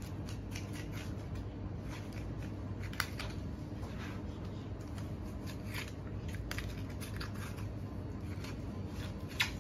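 Boning knife slicing through a beef hindquarter as the meat is pulled away from the bone: soft, scattered cutting sounds, with a sharp click about three seconds in and another near the end.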